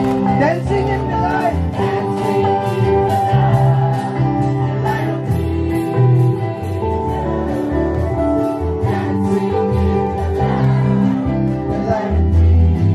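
Live worship band playing Christian praise music: strummed guitar over a steady beat and bass, with singing.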